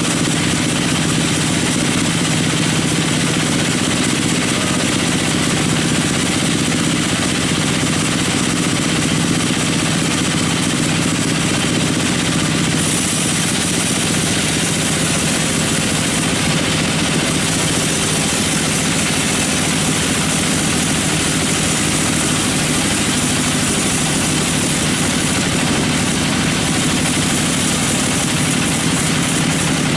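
Sawmill machinery running steadily: a constant mechanical drone with a low hum and a high hiss, the hiss growing stronger about thirteen seconds in.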